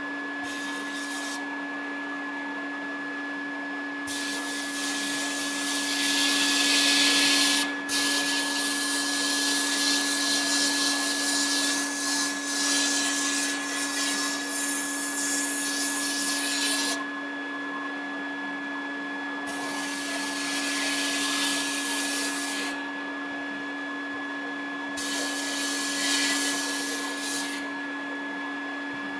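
Abrasive sandblasting in a blast cabinet. The dust-collector vacuum runs with a steady hum, and the blast gun hisses in long bursts, three times, as the rust and tin coating are blasted off the grinder parts.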